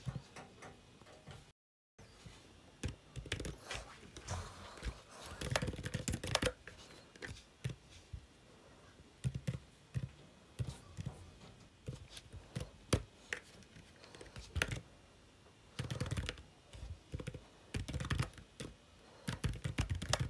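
Typing on a computer keyboard: quick runs of key clicks in short bursts with brief pauses between them.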